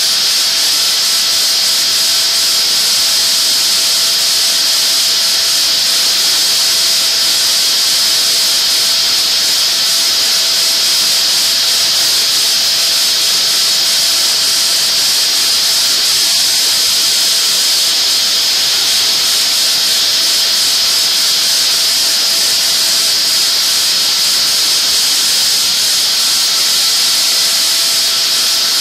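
Steady hiss of the air blow on a diamond-coated R3 ball end mill as it mills a pocket into 90 HRA cemented carbide at 20,000 rpm, with a faint steady whine beneath the hiss.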